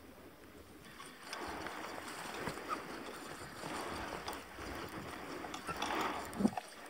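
Water splashing in slow swells about every two seconds as a small rowboat is rowed, with a short knock near the end.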